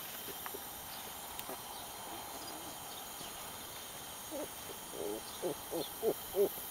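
Quiet outdoor background, then from about four seconds in a run of short animal calls, each rising and falling in pitch, about three a second and growing louder.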